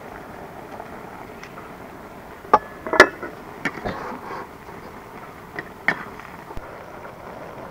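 About six short, sharp knocks in the middle seconds over a steady low background noise.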